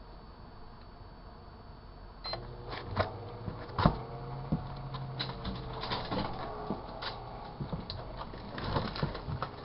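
Sharp Carousel microwave oven starting up: a short beep about two seconds in, then a steady low hum as it runs, with scattered clicks.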